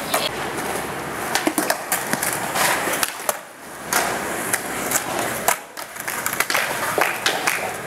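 Skateboard wheels rolling on concrete, broken by several sharp clacks of the board hitting the ground.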